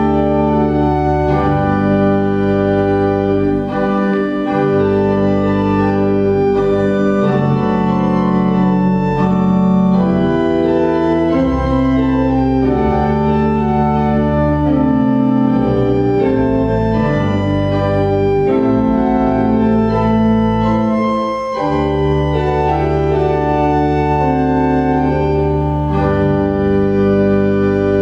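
Organ music: sustained chords over a held bass, changing every second or two, with a short break in the bass about three quarters of the way through.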